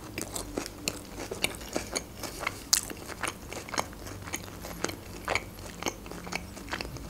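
Close-miked chewing of a mouthful of Caesar salad: irregular crisp crunches and wet mouth clicks, several a second.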